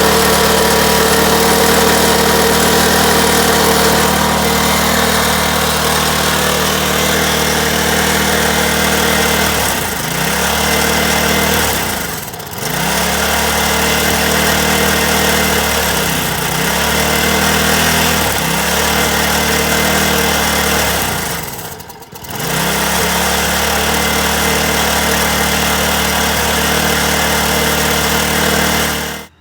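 Snapper lawn mower engine, rigged for nitrous, running at speed; it bogs down and picks back up about four times, and stops abruptly near the end.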